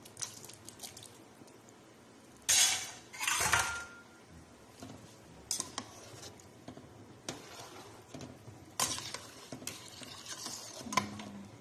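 Sliced carrots tipped from a bowl into a stainless steel pot of simmering stew, with two louder splashing rushes a few seconds in. Then a metal spoon stirs the stew, clinking and knocking against the pot every second or two.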